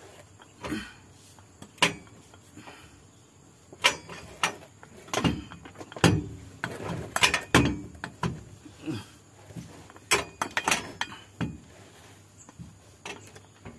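Irregular metal clanks and knocks as a pickup's propeller shaft and universal-joint yoke are pulled and turned by hand during removal, busiest in the middle.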